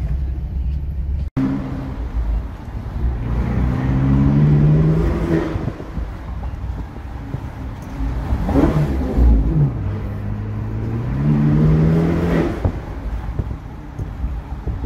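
Ferrari Portofino's twin-turbo V8 pulling through the gears, heard from the open cabin. The engine note rises, then drops back at each upshift. This happens twice, with a brief blip in between. There is a momentary cut-out about a second in.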